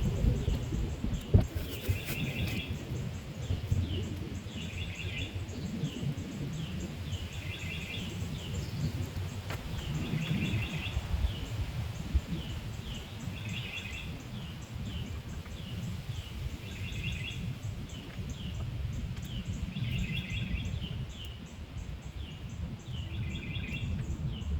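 A bird singing outdoors: a short trill-like phrase of chirps repeated about every three seconds, with single sliding call notes between, over low rumbling noise and a sharp click about a second in.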